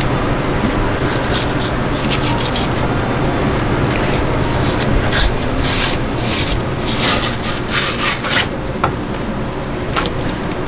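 Long kitchen knife cutting through a large yellowtail fillet and scraping along its skin on a plastic cutting board: a run of short scraping strokes, thickest a few seconds in, over a steady low hum.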